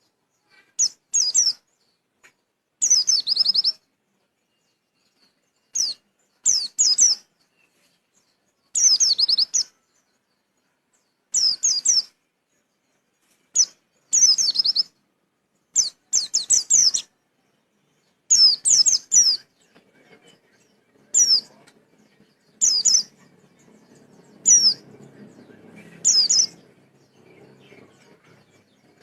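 A pleci (white-eye) singing short, high-pitched twittering phrases of quick downward-sweeping notes, repeated every second or two: the wild-type 'witwit' song used as a lure recording to set caged white-eyes singing. A faint low rumble joins in over the last third.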